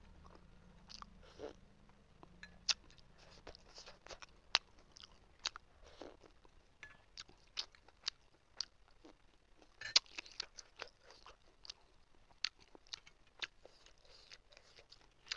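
Close-miked chewing and mouth sounds of someone eating a big chicken momo, with irregular sharp wet smacks and clicks, the loudest about ten seconds in.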